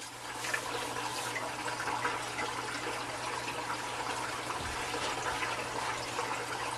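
Water running steadily through an algae turf scrubber, flowing across its screen, over a steady low hum. There is a light knock about half a second in.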